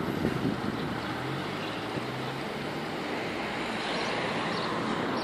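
Distant engine and traffic rumble, with a low engine hum that is steady until about two and a half seconds in, and a short sharp knock at the very start.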